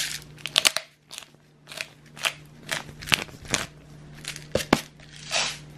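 Hand pepper mill grinding black pepper: a series of short grinds, about two a second.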